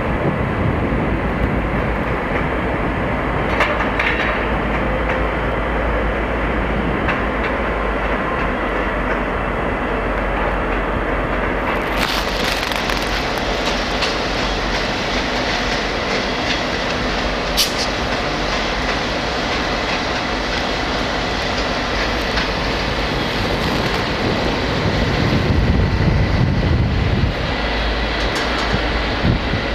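Locomotive-hauled passenger train running past: a steady rumble of wheels on rail with some clickety-clack. The rumble grows louder and deeper for a couple of seconds near the end.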